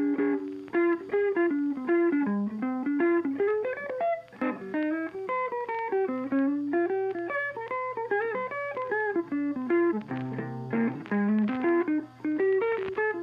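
Background music: a plucked guitar melody of quick single notes over a low bass.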